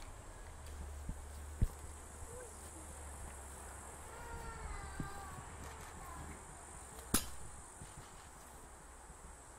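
Quiet summer outdoor ambience: a steady high insect drone, like crickets or grasshoppers, over a low rumble, with a few faint chirps in the middle. Two sharp clicks stand out, the louder one near the end.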